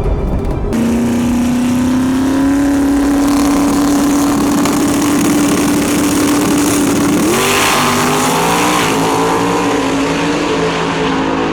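Drag race car engine running at steady high revs, its pitch creeping slowly upward and then stepping up sharply about seven seconds in before holding again.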